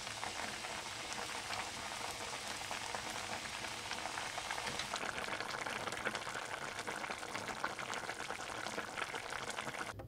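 Pork kimchi stew boiling hard in a pot: a steady, dense bubbling and popping, a little louder from about halfway through.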